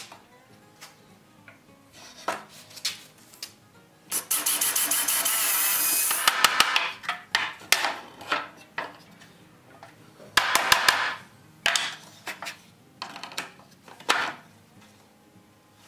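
A power drill running in short bursts while driving screws: one long run of about two and a half seconds, a shorter one about ten seconds in, and a brief one near the end. Light knocks and clicks of tools and parts come between the runs.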